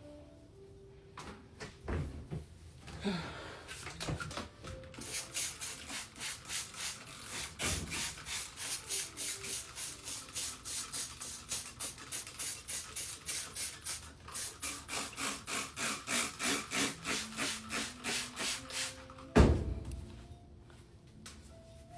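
Quick back-and-forth rubbing or scrubbing strokes, about three a second, running for some fifteen seconds after a few light knocks, then one sharp thump near the end.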